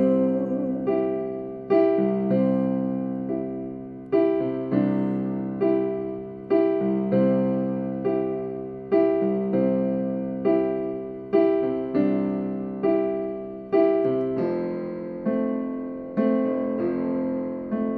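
Instrumental break of a slow ballad played on piano, with chords struck in an unhurried, even rhythm, each ringing and fading before the next.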